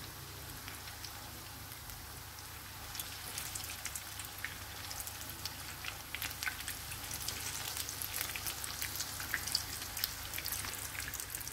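Battered onion fritters frying in hot oil in a pan: a steady sizzle with sharp pops and crackles that grow denser and louder from about three seconds in, while the fritters are turned over with tongs.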